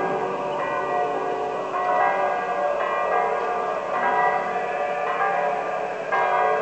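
Church bells pealing, with several strikes about a second apart whose tones ring on and overlap.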